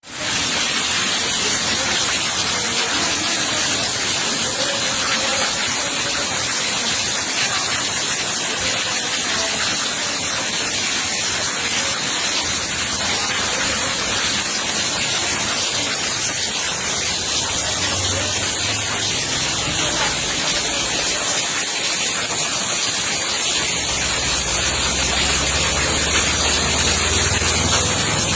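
Heavy rain and rushing rainwater, a steady loud hiss. A low rumble joins underneath near the end.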